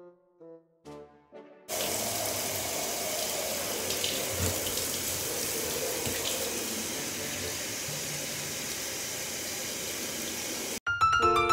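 A few soft musical notes, then from about two seconds in a shower runs steadily with an even hiss of water. It cuts off suddenly near the end, and piano music starts.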